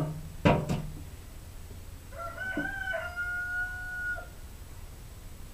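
A rooster crowing once, starting about two seconds in with short broken notes and ending in one long held note. A sharp knock comes about half a second in.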